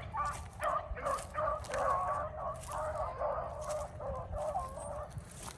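A pack of beagles baying together in full cry, many overlapping voices, running a rabbit's track; the cry breaks off near the end.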